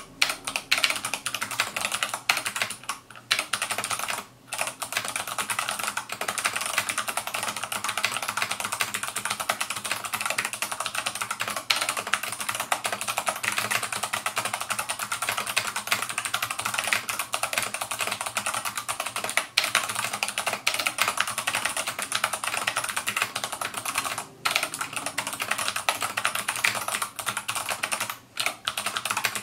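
Fast, continuous typing on a GMMK mechanical keyboard with clicky Kailh BOX Navy switches and Vortex PBT keycaps, each keystroke a sharp click, the board resting on a towel. The typing breaks off in a few brief pauses.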